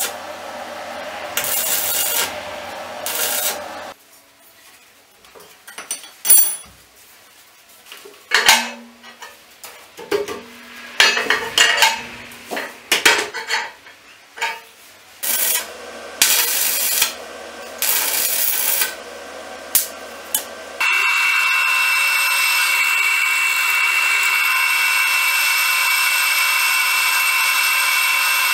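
Arc welding on steel plate, a crackling arc over a low electrical hum, stopping about four seconds in. Then scattered knocks and scrapes of metal being worked by hand, and a second stretch of welding. From about two-thirds of the way in, a drill press runs steadily, drilling through 15 mm thick steel plate.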